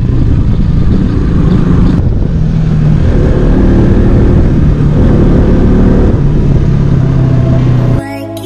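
Single-cylinder sport motorcycle engine running under way, mixed with heavy wind rush on the camera microphone; the engine note steps up about two and a half seconds in and drops back near the end. It cuts off abruptly at about eight seconds into music.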